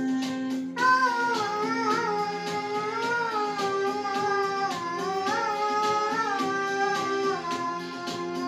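A girl singing a Christmas carol solo over instrumental accompaniment; her voice comes in about a second in, with long held notes.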